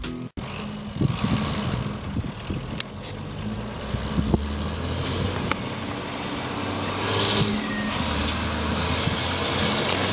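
Zetor 16145 tractor's diesel engine running as it pulls a slurry tanker away, growing gradually louder as it draws nearer.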